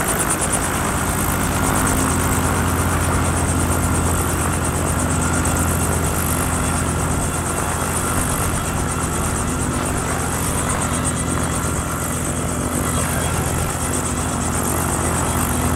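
Robinson R44 Clipper II helicopter running steadily: the drone of its six-cylinder Lycoming piston engine with the fast, even beat of its rotors, holding a steady pitch and level.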